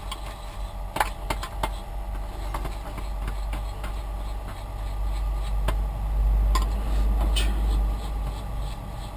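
Electric fan running with a steady hum and low rumble that swells for a couple of seconds past the middle. Scattered clicks and knocks of things being handled are heard over it.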